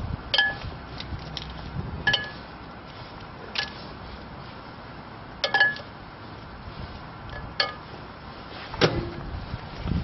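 Plastic highlighter pens being set into a glass dish, clinking against it: about six sharp clinks a second or two apart, each with a brief glassy ring.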